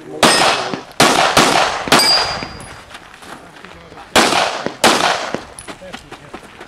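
Pistol shots in a practical shooting stage: four quick shots, a pause of about two seconds while the shooter moves, then two more, each with a short echo. A brief metallic ring follows the fourth shot, a steel target being hit.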